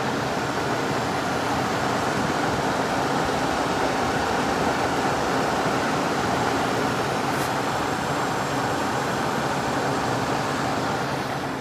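Late-1960s Sears Coldspot 6,000 BTU window air conditioner running, heard from the back: a steady rush of air as the condenser fan blows hot air out, with a low hum underneath. The noise falls away near the end.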